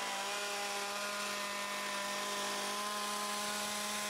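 Bosch 1617EVS plunge router running at a steady speed with a 1½-inch round nose bit on a collet extension, cutting a deep cove into a hardwood molding blank. An even, steady whine throughout.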